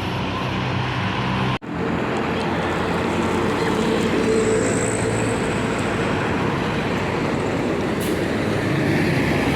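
Steady traffic noise from a passing bus, its engine and tyres running on the road, broken by a sudden cut about a second and a half in.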